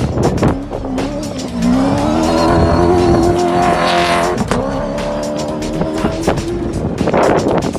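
An off-road racing vehicle's engine revs up about a second and a half in and holds at high revs for a couple of seconds as it passes. A second steady engine note follows, with gusty crackling on the microphone throughout.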